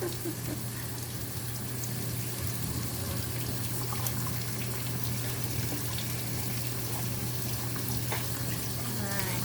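Tap water running steadily into a sink or tub, with a constant low hum underneath.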